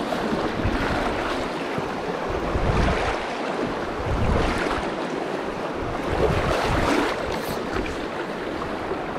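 Fast, shallow river water rushing over a rocky bed close to the microphone, with several gusts of wind buffeting the microphone.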